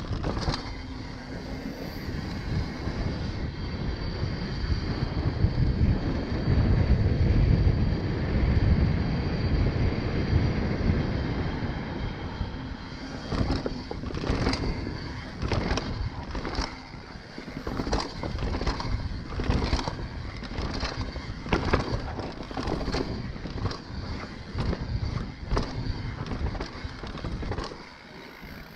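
Mountain bike ridden over paving, a dense low rumble of wind on the camera and tyres on the ground. About halfway through, a run of sharp knocks, roughly one a second, as the bike drops down a flight of concrete steps.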